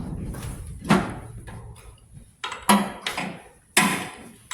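Hand tools clanking on the snowmobile's steel jackshaft and brake disc: a few sharp metallic knocks, about a second in and again near three and four seconds in, with lighter taps between.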